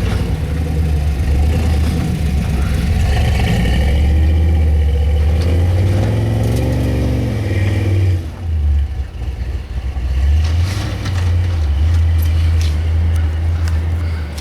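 Plow truck's engine working hard under load while pushing deep snow, labouring. The engine revs up and back down in the middle, drops off briefly a little past halfway, then pulls hard again.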